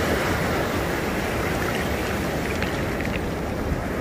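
Rough storm surf breaking and washing up the beach: a steady, unbroken rush of water noise.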